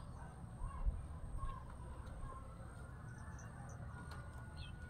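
Small birds chirping: short, high, arched notes repeated about once a second, over a low steady background rumble.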